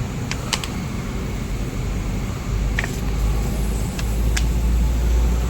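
Several sharp clicks and taps from puncture-repair tools being handled on a tubeless tyre, over a steady low rumble that grows louder about halfway through.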